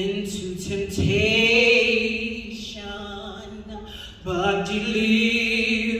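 A woman singing solo into a microphone with no accompaniment, holding long notes in slow phrases; a short break comes near four seconds in before a new, louder phrase.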